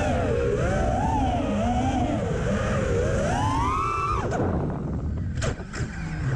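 FPV racing quadcopter's brushless motors and propellers whining, the pitch rising and falling with the throttle over a steady wind rush. About four seconds in the whine drops away sharply as the throttle is cut, and two short clicks follow.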